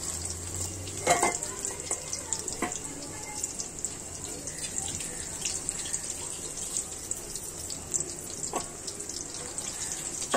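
Flour-coated marinated chicken pieces frying in oil in a pan: a steady sizzle with fine crackling. A few sharp clicks cut through it, about a second in, a second or so later, and near the end.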